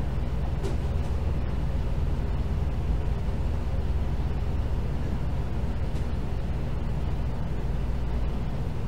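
Steady low rumble with a faint hiss above it, unchanging throughout and with no distinct events.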